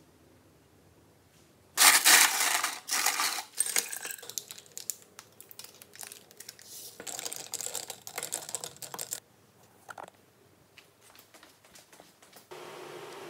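Ice cubes clinking and clattering in a glass mug as a drink is mixed. There is a loud clatter about two seconds in, a second busy stretch a few seconds later, and then scattered light clicks.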